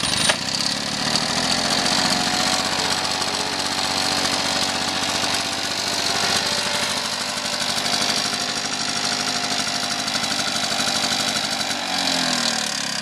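Victa VC Mustang Mark IV lawnmower's 160 cc two-stroke engine running steadily just after a short pull-start. It picks up a little in its first couple of seconds, then holds an even speed.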